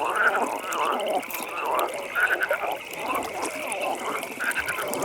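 Chorus of frogs calling over one another, short overlapping croaks and trills without pause, over a steady high pulsing trill.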